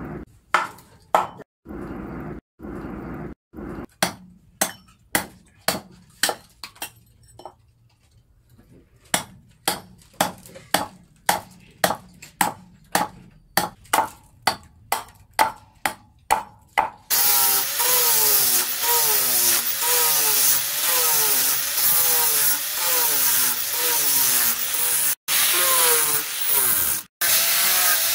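Short bursts of hissing from the axe head quenching in water. Then a hand-held blade repeatedly strikes and chips a wooden axe-handle blank, sharp chops at first about one and a half and then about two a second. About halfway through, an angle grinder takes over, running steadily with a wavering whine as it shapes the wooden handle.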